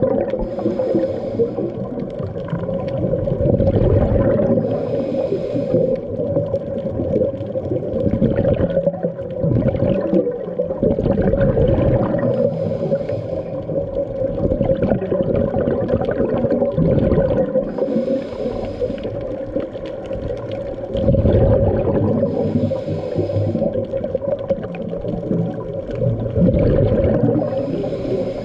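Scuba regulator breathing heard underwater: bubbly exhalations recur about every five seconds over a rough, rumbling water noise and a steady low hum.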